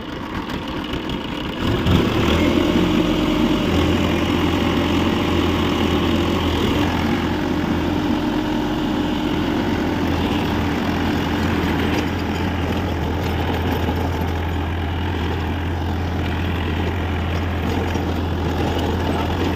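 Massey Ferguson tractor's diesel engine chugging at low speed, then revved up about two seconds in to a steady, louder running note as it sets off working a rotavator.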